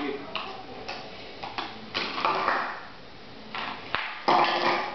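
Hard plastic toy pieces tapping and clinking against a glass tabletop as they are set down and stacked: a few sharp knocks with a short ring, the loudest near the end.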